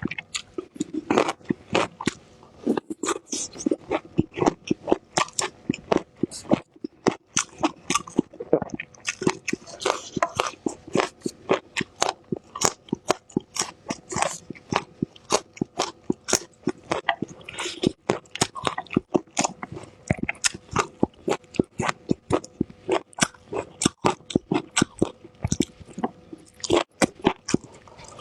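A person biting and chewing fresh bird's eye chili peppers (xiaomila), with rapid wet crunches about two or three a second.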